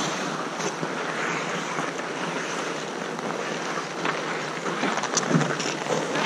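Ice hockey on an outdoor rink: skate blades scraping and carving the ice in a steady hiss, with a few sharp clicks of sticks and puck about four and five seconds in.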